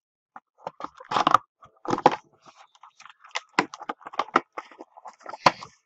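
Packaging of a 2014 Bowman Sterling football card box being handled and opened by hand: irregular crinkles, tears and clicks of wrapper and cardboard, with one sharp snap near the end.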